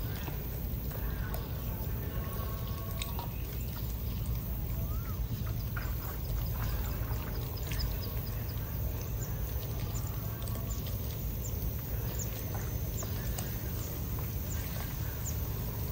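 Hands sorting small gourami and climbing perch out of wet mud in a plastic basket: faint wet squelching, small splashes and scattered clicks over a steady low rumble.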